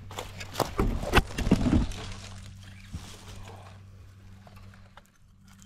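Footsteps on dry bush ground: a few irregular knocks and scuffs in the first two seconds and one more about three seconds in, then quieter, over a faint steady low hum.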